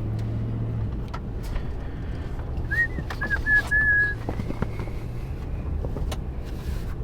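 Steady drone of a car driving, heard from inside. About three seconds in there is a short run of four or five high whistle-like notes lasting about a second and a half.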